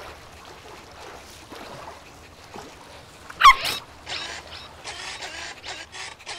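Cartoon sound effects over a soft wash of water: one quick, wavering rising whistle about halfway through, then several short hissing, splashy bursts.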